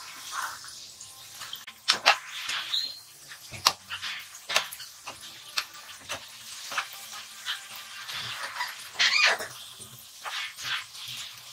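Cabbage koftas deep-frying in hot oil in a kadai: the oil sizzling and bubbling steadily, with a metal slotted spatula clicking and scraping against the pan as the koftas are turned, and a few sharper knocks standing out.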